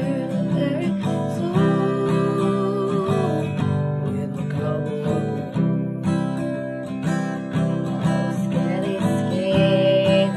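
Acoustic guitar strummed in a steady rhythm under a singing voice that holds long notes, one about two seconds in and another near the end.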